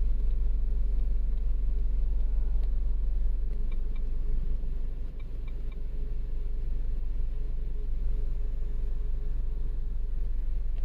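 Steady deep rumble with a faint hum over it, dipping briefly about halfway through, with a few faint ticks.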